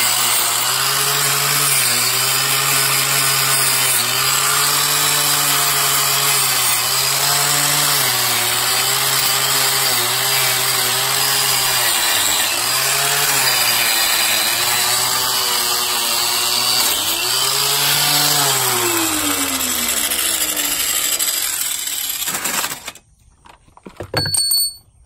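Corded angle grinder with a screw-on rust-removal wheel grinding surface rust off a steel differential housing; the motor's pitch sags again and again as the wheel is pressed into the metal. About 18 seconds in it is switched off and winds down, stopping near the end, followed by a brief knock or two.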